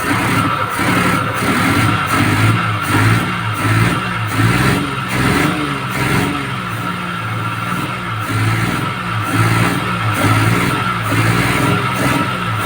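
Suzuki F6A three-cylinder engine running at idle, its speed wavering slightly up and down, while the distributor is turned to set the ignition timing. A steady high whine sits above the engine sound.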